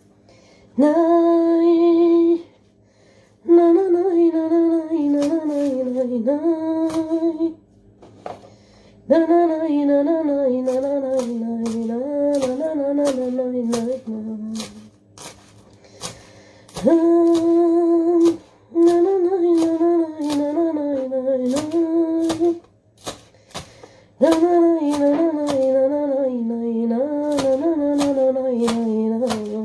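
A woman humming a slow melody in five long phrases with short breaks between them. Irregular sharp clicks of a kitchen knife on a cutting board, chopping onion, run under the humming.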